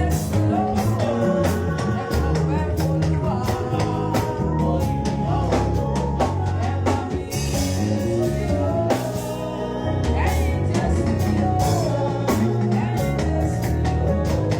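Live band playing during a sound check: a drum kit keeps a steady beat under bass and other instruments, with singing.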